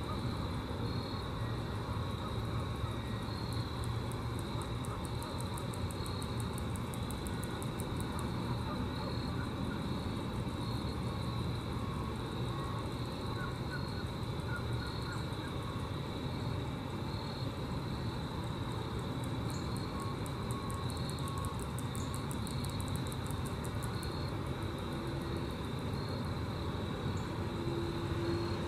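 Grasshoppers stridulating: trains of rapid, high-pitched ticking that swell twice and fade. Under them runs a steady low rumble, with a faint high note repeating about every second and a half.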